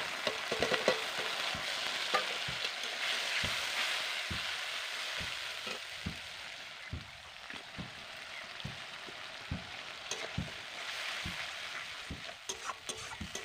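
Sliced onions and wet ground spice paste sizzling in hot oil in a kadai, with a metal spatula scraping and knocking against the pan as it is stirred. The sizzling is loudest in the first few seconds, just after the paste goes in.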